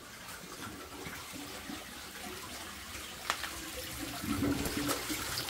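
Natural spring water running and splashing steadily, growing louder near the end. A single sharp click about three seconds in.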